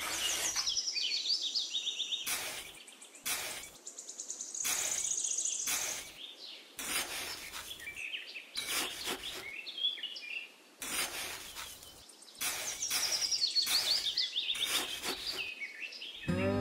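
A small wooden-handled tool scraping and digging into damp sand in short, irregular strokes, while small birds chirp and trill at a high pitch.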